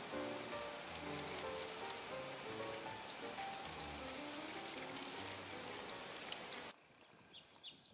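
Steady rush of stream water under soft background music. Near the end it cuts to a much quieter background with a few faint bird chirps.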